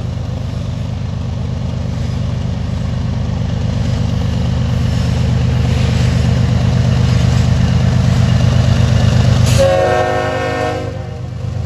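Diesel locomotive running with a steady low rumble that grows louder, then its air horn sounding one chord-like blast of about a second and a half near the end.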